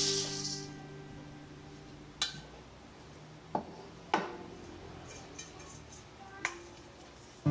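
Freshly roasted coffee beans pouring into a stainless-steel bowl, a rattling hiss that stops about half a second in. Four light, sharp clicks follow, spread over the next few seconds.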